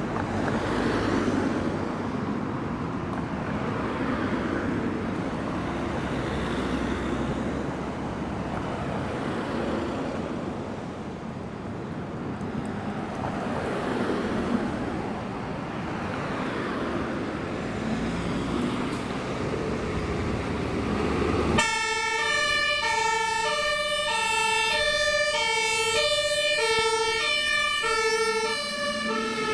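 Road traffic passing, with a low engine rumble. After about twenty seconds, a fire engine's two-tone Martinshorn siren starts abruptly and alternates steadily between a low and a high note. It is sounded by a MAN HLF fire engine pulling out on an emergency run.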